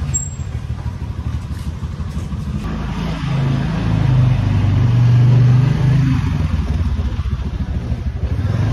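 Motor scooter riding along heard from the seat, a steady low rumble that swells to its loudest about halfway through.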